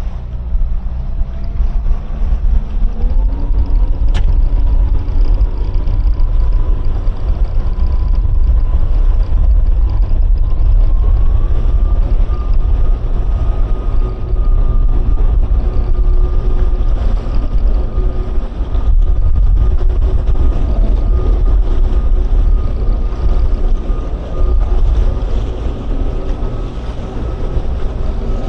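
Towboat's twin outboard motors running hard under load on a towline, their pitch stepping up about three seconds in and again around eleven seconds as the throttles open. A heavy low rumble of wind on the microphone runs under the engines.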